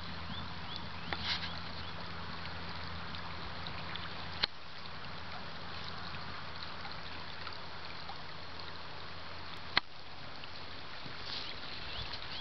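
Steady rush of a wide, shallow river flowing over gravel, a constant even hiss, broken by two sharp clicks about four and ten seconds in.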